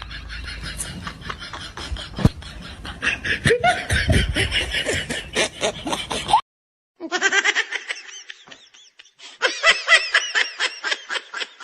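Laughter in quick, repeated bursts. It stops abruptly partway through, and after a short gap a second stretch of laughter starts.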